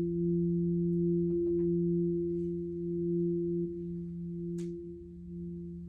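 Singing bowl sustaining a steady, even drone at two pitches an octave apart, with a few faint clicks and a sharper tick over it.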